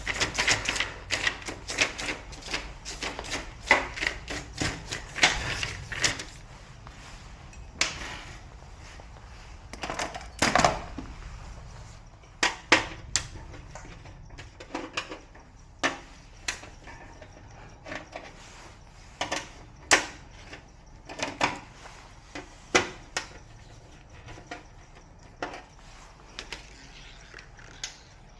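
Hands-on repair work: irregular sharp clicks, taps and light knocks of tools and hard parts being handled, thick and quick for about the first six seconds, then scattered. A low hum under the first six seconds stops.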